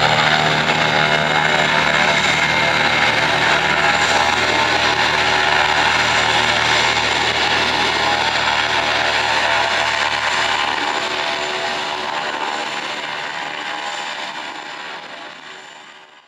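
Twin-engine business jet at takeoff power, climbing away: a steady jet roar with a high whine, fading out over the last few seconds.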